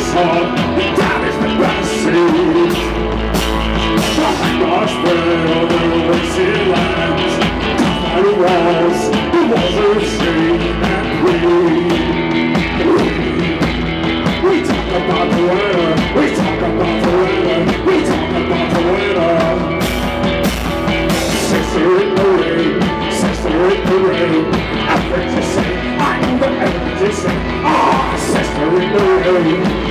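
Rock band playing live: electric guitars over drums, with a man singing.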